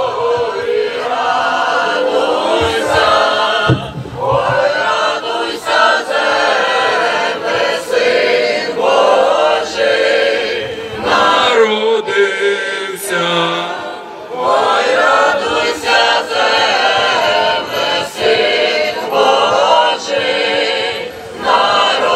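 A choir of voices singing a Ukrainian Christmas carol (koliada) in phrases, with short pauses between them.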